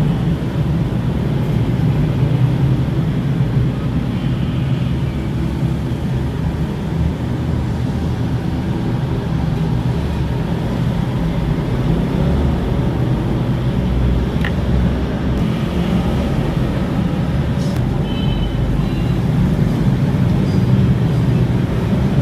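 Steady road traffic noise, a continuous low rumble of passing engines, with a few short high tones near the end.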